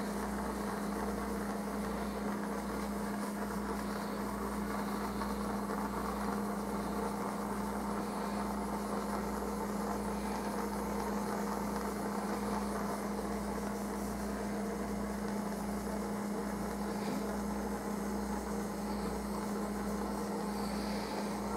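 Handheld plumbing torch burning steadily on low heat: a constant, even hum and hiss.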